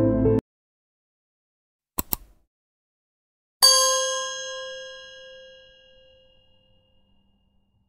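Background music cuts off half a second in. Then a quick double click, and about a second and a half later a single bright ding that rings and fades over about three seconds: a click-and-bell subscribe-button sound effect.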